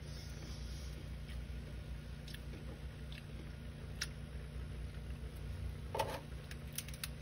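Steady low hum of a running freezer, with a few faint clicks and ticks, the sharpest about six seconds in and a short cluster near the end.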